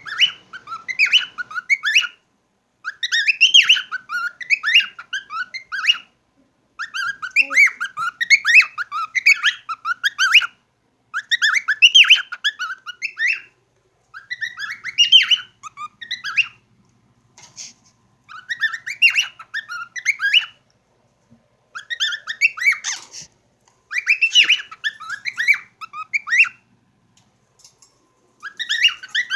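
Pet cockatiels chattering in quick chirpy phrases of two or three seconds each, about ten phrases in all with short pauses between.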